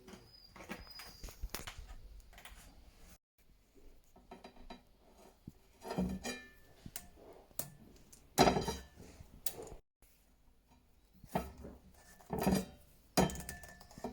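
A series of irregular knocks and clinks of hard objects being handled, like dishes or utensils set down and moved about, with a few louder knocks.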